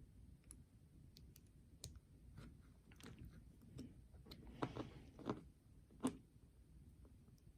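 Lock pick and tension wrench working inside a challenge lock's pin-tumbler cylinder: faint, scattered small metallic clicks and scrapes, with a few louder clicks about two-thirds of the way through.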